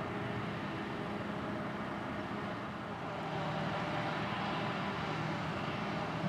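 Heavy farm machinery running steadily. From about three seconds in, the sound gets a little louder and its engine tones change: a Claas Jaguar 870 self-propelled forage harvester picking up and chopping a grass swath, with a tractor engine running alongside.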